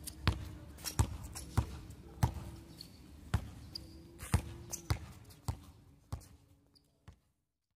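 A basketball dribbled on a hard outdoor court: a sharp bounce roughly every two-thirds of a second. The bounces fade out near the end.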